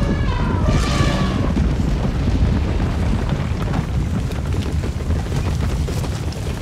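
Stampede of elephants, rhinos and other large animals: a loud, continuous low rumble of many hooves with rapid clattering throughout. A brief high-pitched cry comes about a second in.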